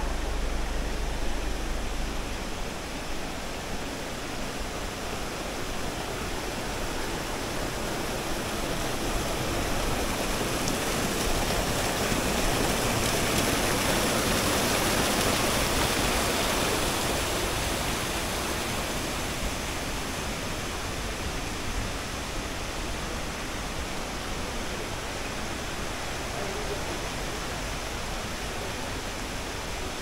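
Rushing water of a stream tumbling over small cascades: a steady rushing hiss that grows louder around the middle and eases off again.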